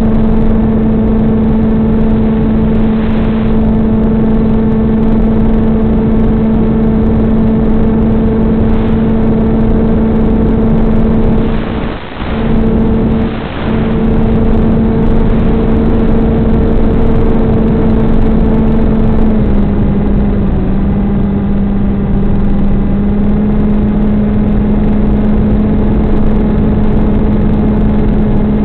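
Electric motor and propeller of a Stratosurfer FPV plane running steadily in flight, heard through the plane's onboard audio as a strong steady hum with a noisy buzz. It cuts out briefly twice near the middle as the video link breaks up, and its pitch steps down slightly about two-thirds of the way in.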